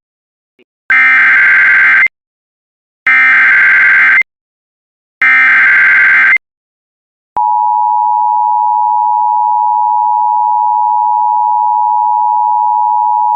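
Emergency Alert System SAME header, three short bursts of warbling digital data tones about a second each, which encode a flash flood warning. About seven seconds in, the EAS attention signal begins: a loud, steady two-tone beep held to the end.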